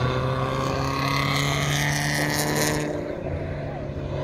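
Cars at speed on a road-racing circuit, their engines running as they pass, with pitch drooping slightly as they go by.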